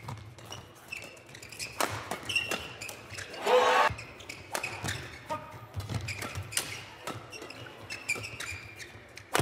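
Badminton doubles rally: rackets striking the shuttlecock in quick, sharp hits, with short squeaks of shoes on the court mat. A brief loud shout comes about three and a half seconds in.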